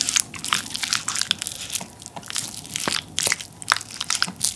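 Close-miked eating sounds: rapid wet clicks and crackles of chewing, along with a wooden spoon working spicy tteokbokki sauce over a rice ball in a ceramic bowl.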